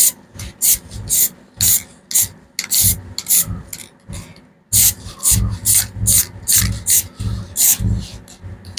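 White spray paint hissing from an aerosol can in a quick series of short bursts, two to three a second, with a brief pause about four seconds in: light coats put on a little at a time through a star template.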